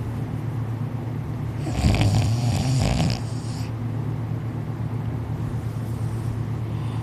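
One long, loud snore starting about two seconds in, from a sleeper lying on his back with his mouth falling open and shut. A steady low hum runs beneath it.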